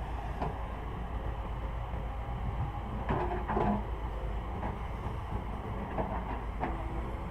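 Heavy diesel machinery running steadily, with several metallic clanks and knocks, mostly about three to four seconds in and again near the end.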